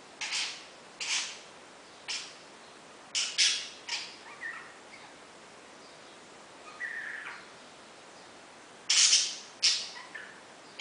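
Pet parakeet squawking: about ten short, harsh calls in irregular groups, with a couple of thinner chirps in between.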